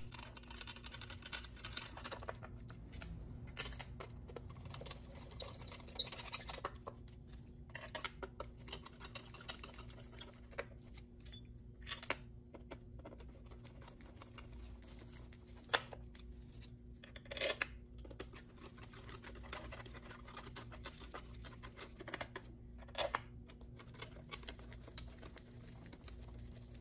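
Faint clicking, scraping and tapping of a screwdriver driving bolts back into a car radio unit's housing, with a few louder knocks, over a steady low hum.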